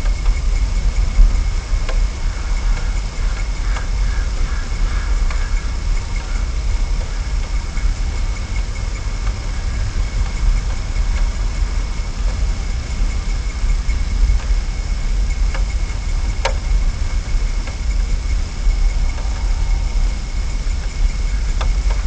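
Steady low rumble picked up by an outdoor nest-camera microphone, with a constant faint high-pitched whine and a few faint clicks.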